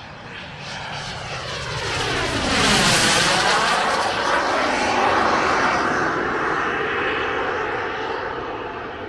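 Jonker JS-1C Revelation glider's MD-TJ42 small turbojet engine in a low pass overhead: a jet whine and rush that swells, is loudest about three seconds in, drops in pitch as it goes by, and then slowly fades.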